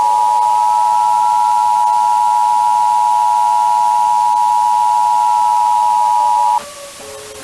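Emergency Alert System attention signal: a loud, steady two-tone sine beep at 853 and 960 Hz. It cuts off suddenly about a second before the end, and a fainter tone beneath it slides slowly downward near the end.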